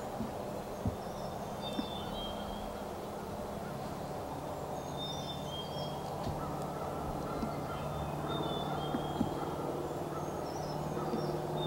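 Small birds calling in short whistled phrases, a few notes every three or four seconds, over a steady low drone and a few faint ticks.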